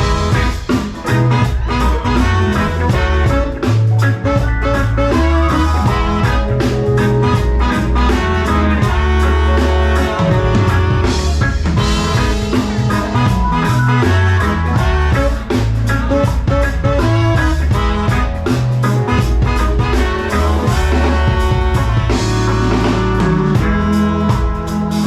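Live reggae band playing: drum kit and bass under guitar, with a three-piece horn section playing arranged lines.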